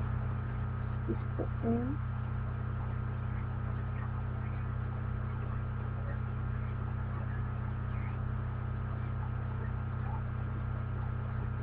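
Steady low electrical hum with background hiss, with a brief faint murmur of a voice about a second and a half in.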